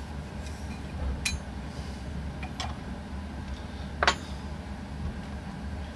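Three light clicks and clinks, the loudest about four seconds in, as a metal powder scale pan and a plastic charge tube are handled and set down while a weighed black powder charge is decanted into the tube.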